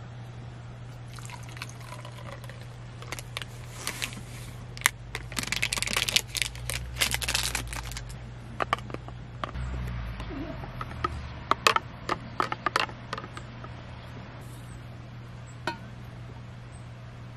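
Hot water poured from a small stainless steel pot into a cup of instant soup powder, with a few seconds of steady pouring mid-way followed by scattered light clinks and taps. A steady low hum runs underneath.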